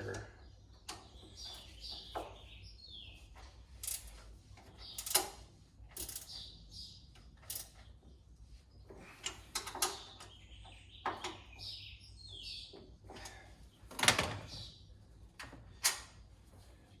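Irregular clinks and knocks of metal hardware: bolts, washers and tools being handled while caster mounting plates are bolted to a steel tool cart, with the loudest knock near the end.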